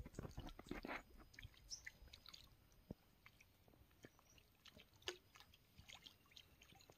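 Mostly near silence with faint wet squishing and light crackles in the first second or so, then a few scattered small ticks: hands pressing a cooked-rice and rice-polish dough bait onto a fishing hook.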